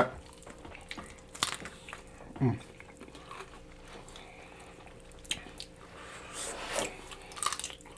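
Biting into and chewing a large sauced chicken wing close to the microphone, with scattered crunches and mouth clicks, and a short hum about two and a half seconds in.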